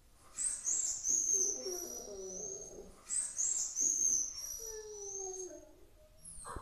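Rottweiler howling in two long calls, each carrying a thin high whine, the second sliding down in pitch as it fades.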